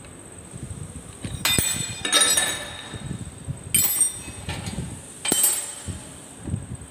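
Steel tools and die parts clinking against the steel blocks of a press trimming die: four sharp metallic clinks a second or so apart, the loudest near the two-second mark ringing on briefly.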